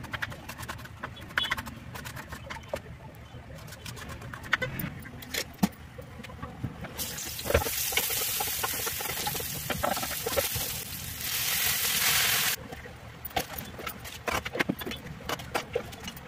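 Scattered light knife clicks and taps on a wooden cutting board, then a loud, steady sizzle of chopped garlic frying in hot oil in a metal pan, stirred with a wooden spatula, which cuts off suddenly about twelve and a half seconds in. More light knocks and clatter of utensils follow.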